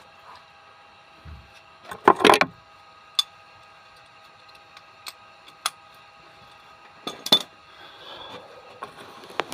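Metal hand tools and bolts clinking and clattering as engine parts are handled: a handful of separate sharp knocks, the loudest a short rattling cluster about two seconds in. A faint steady hum sits underneath.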